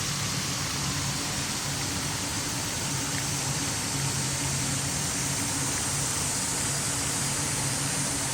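Steady background noise: a continuous hiss with a faint low hum underneath and no distinct events.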